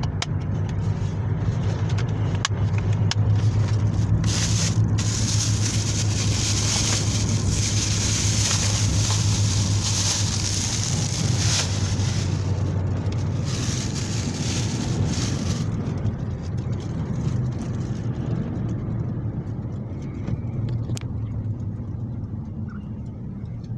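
Car interior noise while driving: a steady low engine and road hum with tyre and road hiss that is louder through the first two-thirds, then eases off.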